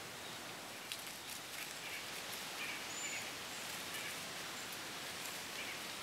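Outdoor woodland ambience: a steady hiss with dry fallen leaves rustling and crackling from about a second in, and a few faint short bird chirps.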